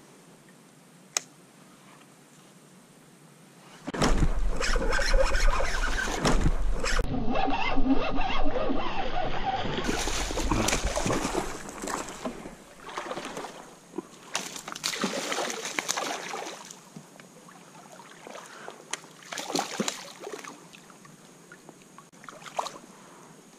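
A sudden loud boom sound effect with a deep rumble, several seconds long, laid over a hard hookset, then a hooked bass splashing and thrashing at the water surface beside a kayak in short irregular bursts.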